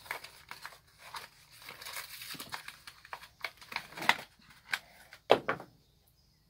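Packaging being handled: irregular crinkling and rustling with scattered sharp clicks, the loudest click about five seconds in.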